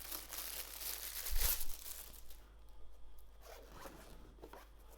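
Zipper on a hard-shell mouse carrying case being pulled open in a rasping run, with a knock about one and a half seconds in, then quieter handling of the case.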